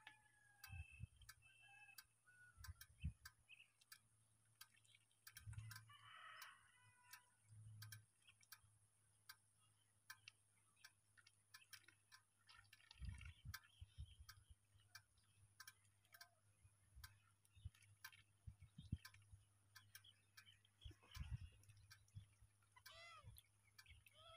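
Near silence: faint, even ticking about three times a second, with a few faint distant calls and occasional low thumps.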